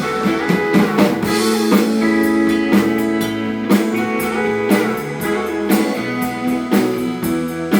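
Live blues band playing an instrumental passage between vocal lines: guitars over a drum kit keeping a steady beat.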